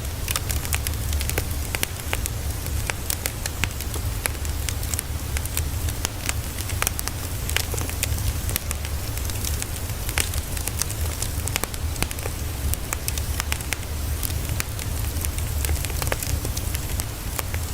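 Steady crackling fire ambience, a dense run of small sharp pops and snaps over a low rumble, played as white noise for studying.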